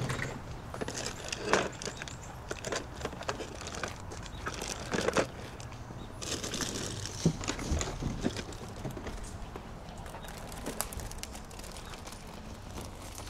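Items being handled, with scattered small knocks and rustles, and footsteps on a paved driveway.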